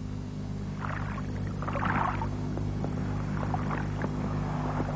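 Water lapping and splashing in soft washes, a few times, over a steady low hum.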